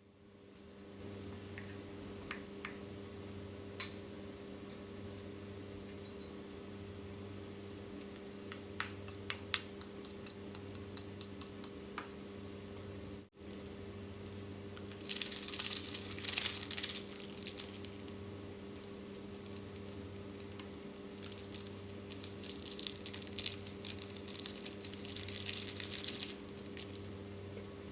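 Kitchen cookware sounds: a quick run of metallic clinks, like a utensil tapping a pot or bowl, then stretches of hissing. A steady electrical hum runs underneath.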